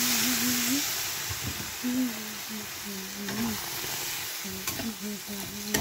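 Water poured into a hot kadhai of frying dhoka mixture, hissing and sizzling loudly at first and easing off, while a spatula stirs and scrapes the mixture in the pan.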